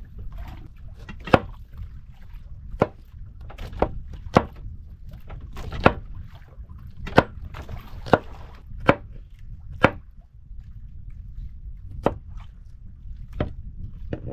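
Knife chopping on a wooden cutting board: about eleven sharp, irregular strikes, over a steady low rumble.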